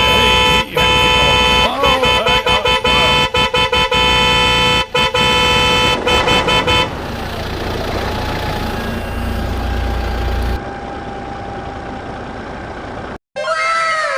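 A vehicle horn honking in a string of long and short blasts for about seven seconds. It gives way to a quieter steady hum, and after a brief drop-out near the end come repeated falling 'boing' cartoon sound effects.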